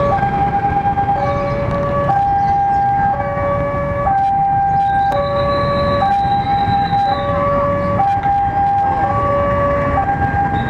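Railway level-crossing warning alarm sounding as the barriers lower for an approaching train: an electronic two-tone signal alternating between a low and a higher note about once a second. Under it the engines of motorbikes and cars run at the crossing, and a high thin tone sounds for about two seconds midway.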